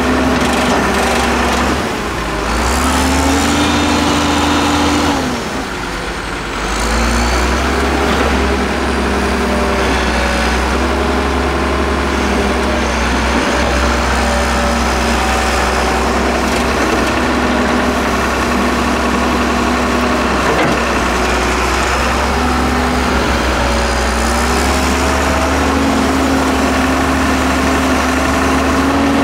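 Diesel engine of a Hyundai Robex 1300W wheeled excavator running steadily as it loads sand, its note rising and falling a few times as the hydraulics take load.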